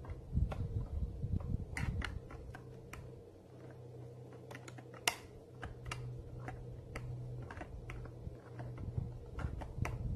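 Irregular light clicks and taps of needle-nose pliers against a trimmer carburetor and its fittings, over a steady low hum.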